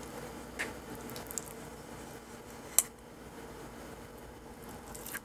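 Plastic plunger mooncake mold being pressed and handled on a silicone baking mat: a few light plastic clicks and taps, the sharpest nearly three seconds in, over a steady background hum.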